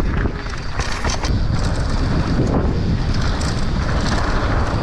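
Wind rushing over the camera microphone of a downhill mountain bike rider at speed, with the tyres rumbling on dry dirt and the bike rattling in short knocks.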